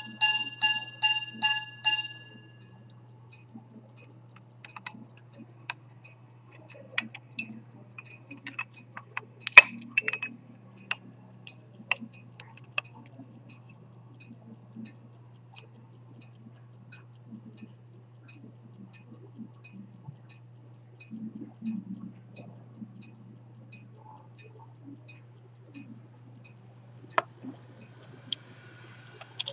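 Antique minute-repeater pocket watch: its repeater gongs, a newly replaced gong among them, ring in quick even strikes for about the first two seconds, then the movement ticks faintly and steadily. Scattered clicks come from the case being handled, with one sharp click about ten seconds in.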